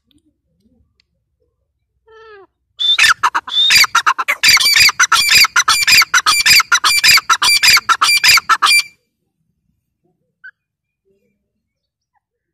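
Caged grey francolin (teetar) calling: a faint short call with falling pitch about two seconds in, then a loud run of rapid repeated notes lasting about six seconds that stops suddenly.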